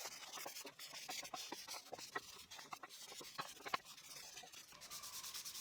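Faint hand sanding of wood with 400-grit sandpaper: light rubbing with scattered small clicks and taps, settling into quick, even strokes near the end.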